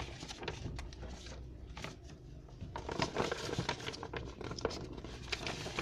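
Paper sheets rustling and crinkling as they are lifted and turned over by hand, in irregular soft scrapes and flutters.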